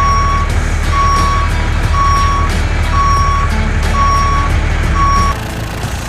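Truck reversing alarm beeping six times, about once a second, over a low engine rumble; both stop together about five seconds in.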